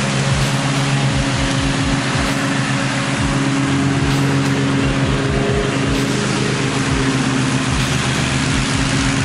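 Gravely zero-turn mower's engine running steadily as the mower drives across the lawn cutting grass, with wind buffeting the microphone in low, irregular thumps.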